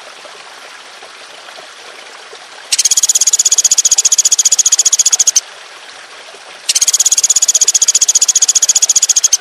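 A high-pitched, rapidly pulsed buzzing trill from a recorded animal call used to tutor cage birds. It sounds twice, each bout lasting nearly three seconds: the first starts a little under three seconds in, the second starts about two-thirds of the way through and runs to the end. Between the bouts there is only a low hiss.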